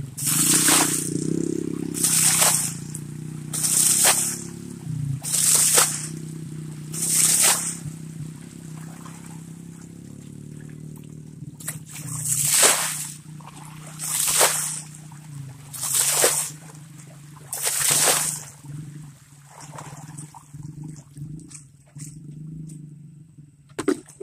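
Bucketfuls of water thrown onto a bank of sand and gravel, washing the sand off the stones: a short splash about every two seconds, five in a row, a pause, then four more. A low steady hum runs underneath.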